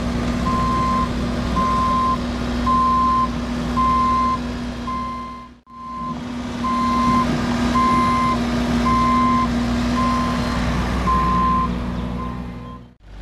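Reversing alarm on a heavy diesel vehicle, beeping evenly a little under twice a second over the engine's steady running. The sound drops out for a moment about halfway through.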